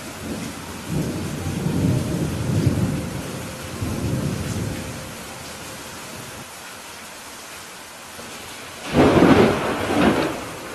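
Steady rain with thunder: a low rolling rumble over the first five seconds or so, then a louder, sharper thunderclap about nine seconds in.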